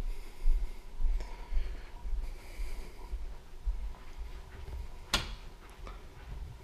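Dull low thumps of footsteps and handling noise on a handheld camera carried at a walk over carpet, with one sharp click about five seconds in.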